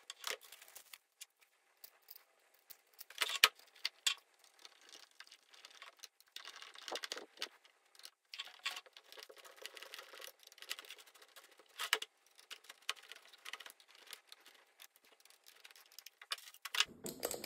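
Parts of a Parkside PKBM 1800 A1 core drill being handled and fitted together by hand: scattered clicks, knocks and scraping of plastic and metal pieces, with a few sharper knocks.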